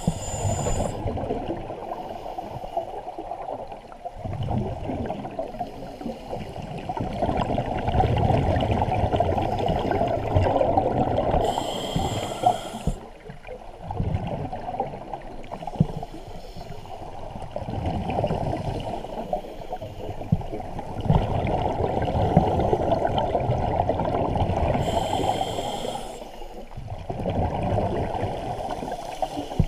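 Scuba regulator breathing heard underwater: three short hissing inhales, one at the start, one about twelve seconds in and one near the end, with long stretches of exhaled bubbles rushing out in between.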